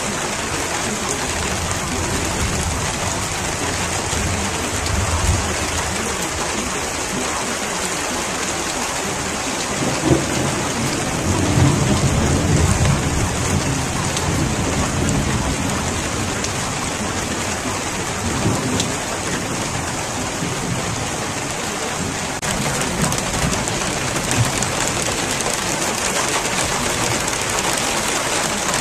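Steady rain falling, an even hiss of drops. About ten seconds in, a low roll of thunder swells for a few seconds.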